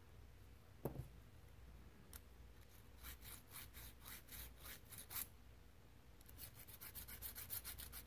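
A round jeweler's needle file scraping lightly across the steel claw of an AK trigger, in two runs of quick strokes: about five a second, then a faster run of about seven a second near the end. It is taking down a raised molding mark on the disconnector engagement surface so the trigger will reset. A soft knock about a second in.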